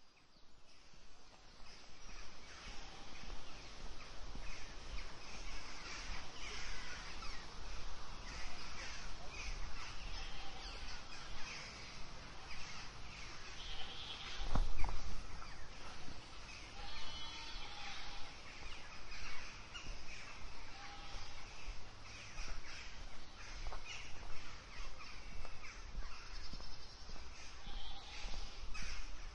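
Goats bleating among many birds calling, fading in over the first couple of seconds, with one loud low bump about halfway through.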